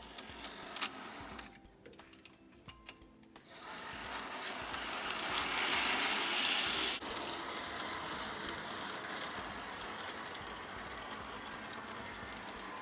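Hornby Polly 0-4-0 model locomotive's small electric motor and gears whirring as it runs along the track while being run in. It goes quiet with a few clicks a couple of seconds in, then comes back and grows louder, drops suddenly about seven seconds in and runs on steadily.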